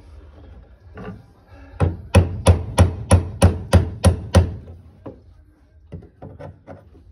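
A run of about nine sharp knocks, roughly three a second, against the fuel pump module's locking ring on the tank of a Nissan March, knocking the ring loose to get the pump out. A few lighter, scattered knocks follow.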